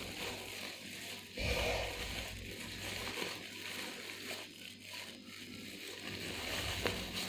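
Plastic crinkling and rustling from handling and squeezing a hair-dye colourant sachet, with a soft low bump about a second and a half in.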